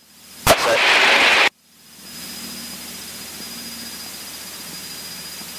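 A sharp click and about a second of loud hiss from the aircraft radio, cut off abruptly. It is followed by the steady low drone of the Cessna 152's engine in the cockpit audio, with a faint high whistle over it.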